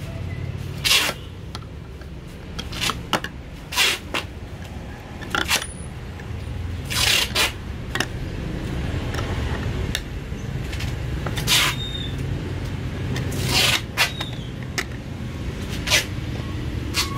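Hand-held can opener with a toothed cutting wheel working around the rim of a tin can: a string of sharp metal crunches, irregularly about one to two seconds apart, as each turn of the handle bites the lid open.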